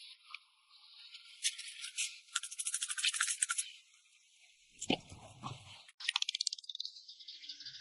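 Quick runs of short rasping strokes, like a tool scraping or brushing a hard surface, with a dull low knock about five seconds in.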